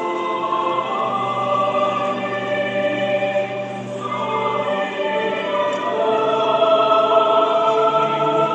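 Large choir with its accompanying ensemble singing a slow hymn in long held chords that shift every second or two.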